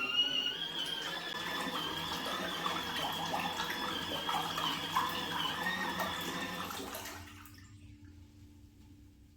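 Water running and splashing, with a steady high-pitched whistle over it; it cuts off about seven seconds in, leaving a faint low hum.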